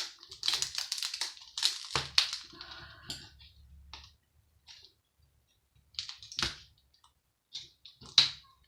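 Plastic and metal parts of a computer monitor being handled and pried apart: a string of clicks, knocks and rattling scrapes. The loudest sharp knocks come about two seconds in, around six and a half seconds, and near the end, with a quieter spell in between.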